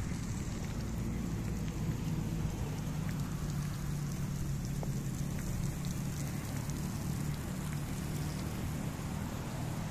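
Lawn sprinklers spraying water over grass: a steady hiss and patter like rain, with scattered droplet ticks. Underneath is a steady low rumble, likely wind on the microphone.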